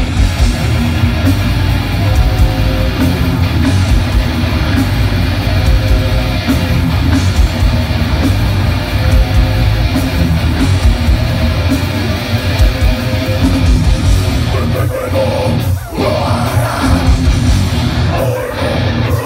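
Heavy metal band playing live through a large outdoor PA, with distorted electric guitars and drums at full volume, heard loud from the crowd.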